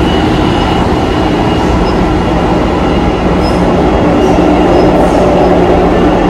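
Pittsburgh light-rail subway car running, heard from inside the car: a steady loud rumble of wheels on rails with a faint low hum.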